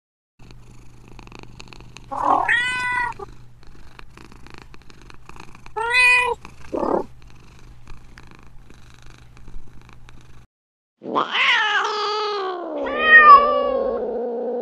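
Domestic cat meowing: two short meows a few seconds apart, then a long drawn-out meow near the end that falls in pitch and holds on. A faint low hum sits under the first two-thirds.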